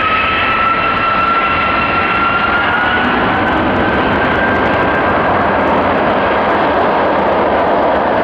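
Boeing 747-400 freighter's four jet engines running loud, a steady rush with a high whine that climbs slowly in pitch over the first few seconds.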